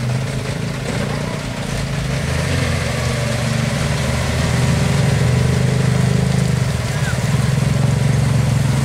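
Diesel dump truck engine running steadily under load as the truck crawls through deep mud, growing louder from about three seconds in.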